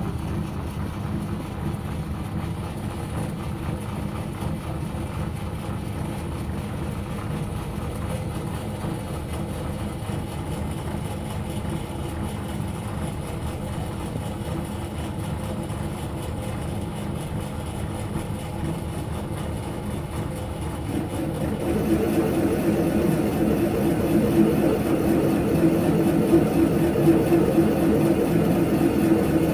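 Myford ML7 lathe switched on and running steadily. About 22 seconds in, it grows louder, with a stronger mid-pitched hum.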